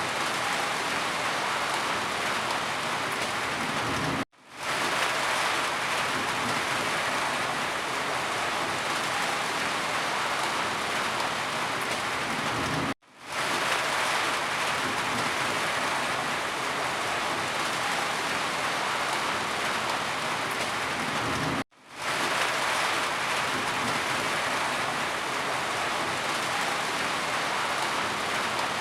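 Steady rain falling, a dense even hiss of many drops. It cuts out to silence for a split second three times, about every nine seconds, and swells straight back in each time.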